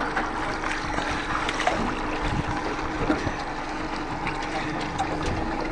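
Outboard motor idling with a steady hum, under water splashing and lapping against the boat's hull.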